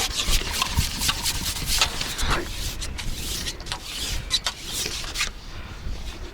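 Irregular rustling and rubbing strokes over wind rumbling on the microphone.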